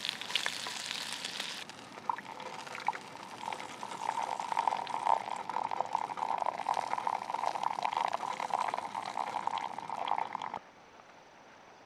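Beef sizzling in a hot pan for the first second or so, then, after a cut, liquid being poured into a container for several seconds before stopping abruptly.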